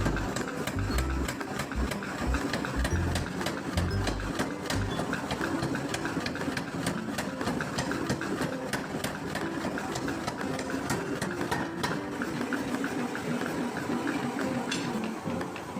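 Mechanical power hammer running, its ram striking in rapid, repeated blows that make a fast, continuous clatter of sharp knocks.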